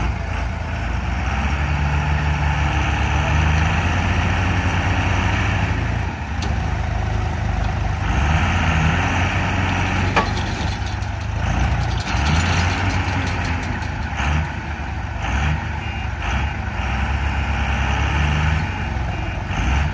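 Heavy diesel truck engine running hard, its revs rising and falling as the truck, stuck in mud, is driven to get it free. Short repeated high beeps sound near the end.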